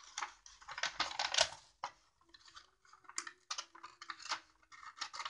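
Small folded-paper box being handled, its stiff paper crackling and rustling in a few bursts of crisp clicks as it is gripped and turned.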